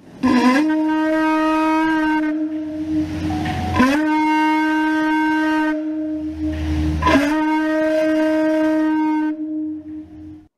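Conch shell trumpet blown in three long blasts of about three seconds each. Each blast opens with a quick upward scoop in pitch, then holds one steady, bright note.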